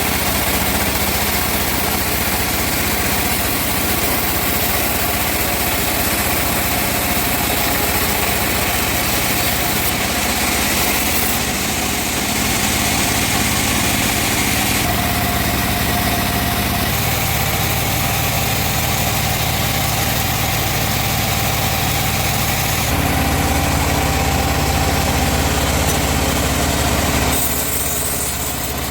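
Engine-driven sawmill machinery running steadily, a loud continuous drone whose tone changes abruptly several times.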